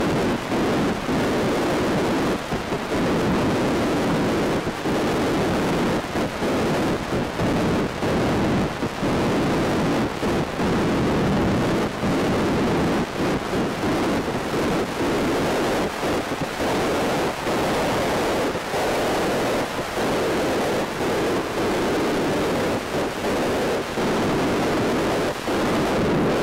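Skydiving freefall wind rushing over the camera's microphone at over 100 mph: a loud, continuous rush of air, buffeted by many quick, irregular dips.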